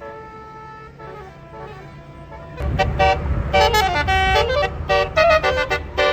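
Indonesian bus "telolet" musical horn of the Basuri type playing a rapid run of changing notes over a bus engine rumble. It is fainter at first, then from about two and a half seconds in the engine rumble and the horn melody both become much louder.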